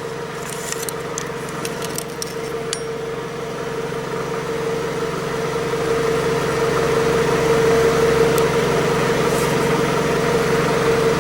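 A steady engine hum, like a vehicle idling, that grows a little louder after the middle. A few light metallic clicks sound in the first three seconds.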